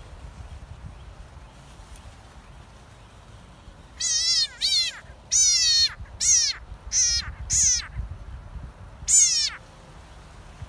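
A tree frog screaming distress calls while seized by a black racer snake: about seven loud, high-pitched, wavering cries in quick succession, starting about four seconds in and stopping about a second before the end.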